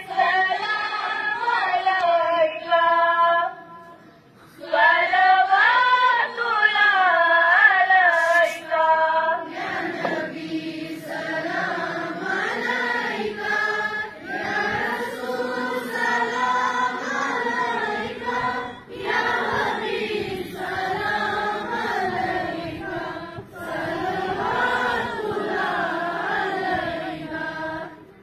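A group of students singing together in unison, a slow chant-like song in long phrases, with a brief pause about four seconds in.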